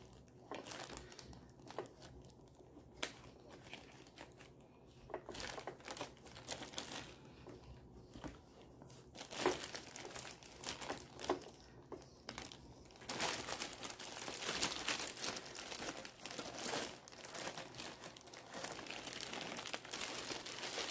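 Clear plastic packaging crinkling and rustling as hands handle and unwrap car seat parts. There are scattered light rustles and clicks at first, and steady dense crinkling from about two-thirds of the way through.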